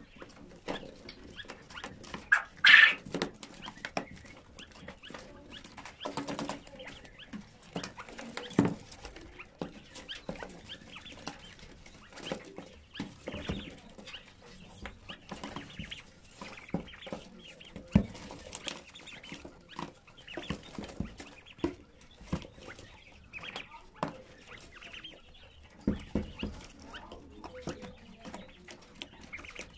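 A brood of young partridges moving and pecking on gravelly litter in a cardboard box: many small taps, scratches and rustles, with soft calls now and then and one louder burst about three seconds in.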